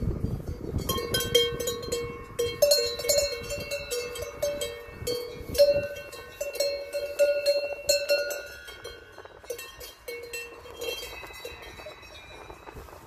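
Cowbells worn by grazing cows clanking irregularly as the cows move, with bells ringing at more than one pitch. The clanking grows sparser over the last few seconds.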